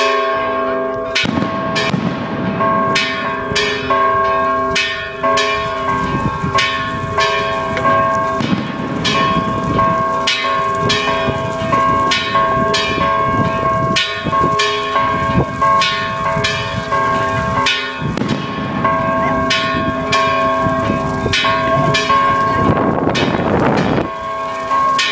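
Church bells being rung: quick, uneven strokes about twice a second over the steady hum of several bell tones that keep ringing between strokes.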